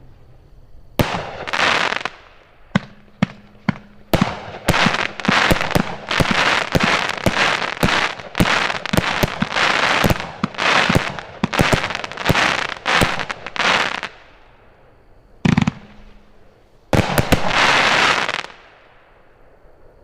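Multi-shot firework cake firing its finale. Sharp launch bangs each open into a crackling break, coming in quick succession for about ten seconds. After a short lull there are a couple more shots and one last long crackle.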